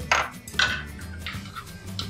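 A spatula and chopsticks clinking and scraping against a stainless steel wok as rice vermicelli is tossed in its cooking liquid: two sharper clinks in the first second, fainter scrapes after. Background music plays underneath.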